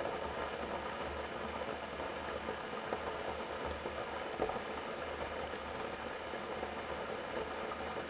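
Electric kettle heating water: a steady rushing hiss over a low hum, with a few faint ticks.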